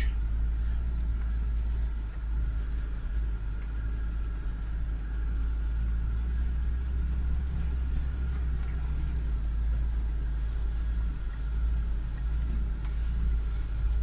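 UAZ Patriot's ZMZ Pro petrol engine running with a steady low rumble, with a few faint clicks over it.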